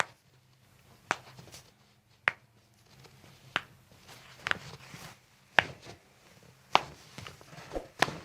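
A run of sharp single clicks, about one a second, evenly spaced, with two close together near the end.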